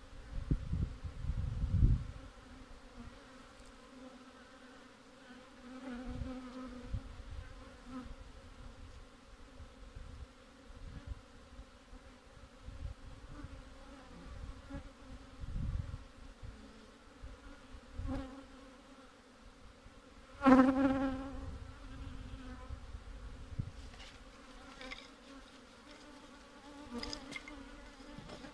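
Honeybees buzzing around an open hive, a steady hum with a strong swell about two-thirds through. Low rumbling bumps come and go underneath, heaviest in the first two seconds.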